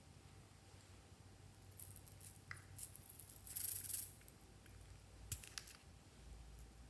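Hands handling small plastic items, a glitter jar and a toy ball: a few light clicks and taps, with a short rattling rustle a little past halfway.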